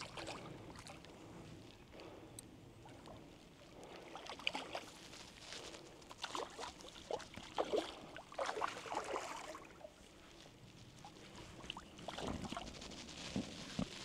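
Shallow creek water splashing and sloshing in irregular spurts.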